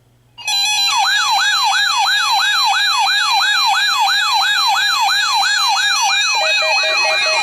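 Electronic siren sound: a tone sweeping up and down about three times a second over steady synthesized tones. It starts suddenly about half a second in, out of near silence, and a lower pulsing tone joins near the end.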